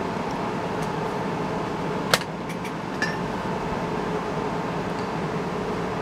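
Steady hum of room fans and air conditioning, with one sharp clink about two seconds in and a few lighter clicks just after, as small hard objects are picked up and handled.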